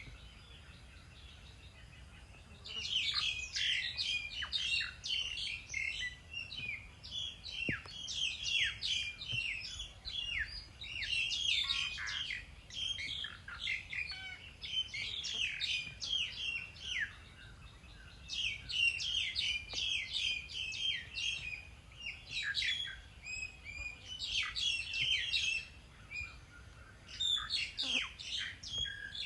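Small birds chirping and twittering in quick, dense bouts of short high notes, several calling over one another. The chirping starts a few seconds in and pauses briefly twice.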